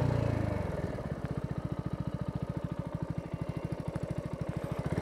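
Mutt Mongrel 250's 250cc single-cylinder engine dropping in revs as the bike rolls to a stop, then idling with an even single-cylinder thud of rapid firing pulses.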